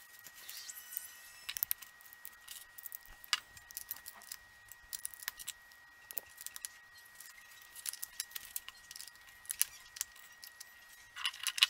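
LEGO bricks clicking and rattling as plastic pieces are sorted and snapped together: irregular sharp clicks, with a quick flurry of louder clicks near the end.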